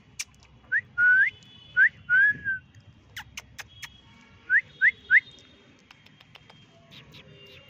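A person whistling short rising whistles, four in the first three seconds and then three quick ones about five seconds in, with a few sharp clicks between.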